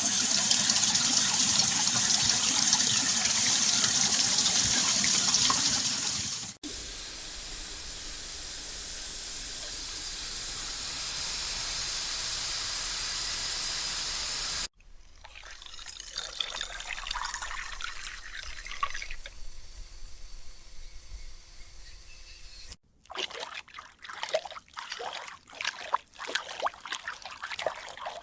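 A run of water sound effects with abrupt cuts between them. First a loud gush like running tap water, then a steady hissing rush of water, then a quieter trickle, and finally irregular drips and splashes.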